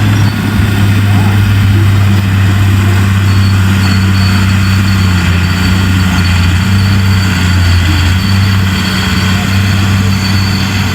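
Big bulldozer's diesel engine running steadily with a deep, even drone and a faint high whine above it.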